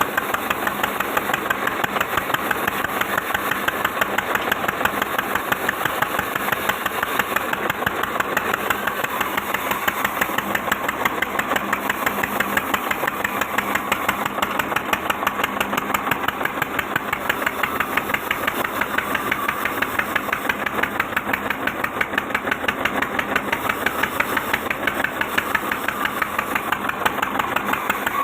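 Sawmill machine running steadily with a rapid, even knocking pulse.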